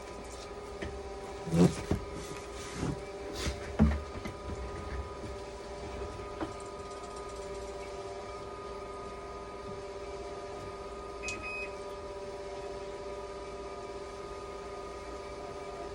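Steady machine hum made up of several held tones, with a few knocks and clicks in the first four seconds and a short high beep about eleven seconds in.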